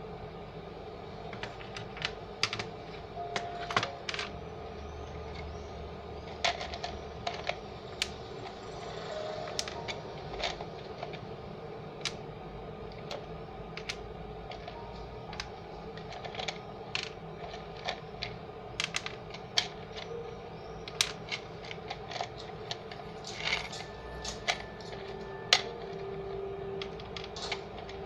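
Irregular sharp clicks and light taps, a few a second at most, over a steady low hum.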